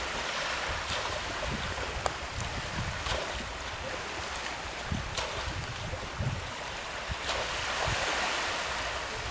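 Small waves washing in the shallows at the shore, with wind buffeting the microphone as an uneven low rumble.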